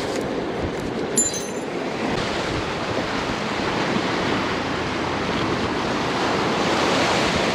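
Surf washing in steadily, with wind buffeting the microphone. About a second in there is one brief, sharp, high-pitched click.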